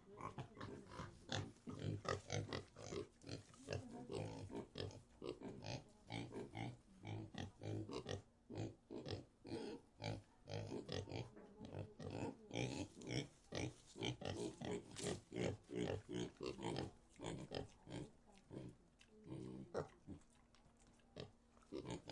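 Pigs grunting: a rapid run of short grunts, several a second, that thins out into a quieter stretch near the end.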